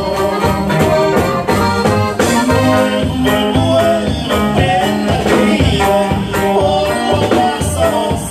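Live band music from a Mexican regional group: an even drumbeat and bass under a sustained melody line, with little or no singing.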